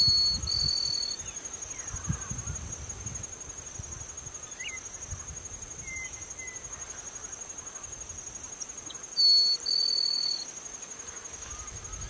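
Natural grassland ambience: an insect trilling steadily at a high pitch, with a bird whistling two flat notes at the very start and again near the end, and a few short chirps in between.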